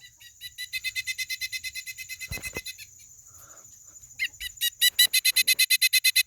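Pileated woodpecker call played through a plush toy bird's small speaker: two runs of rapid, evenly spaced high notes, the second louder, with a soft knock of handling between them.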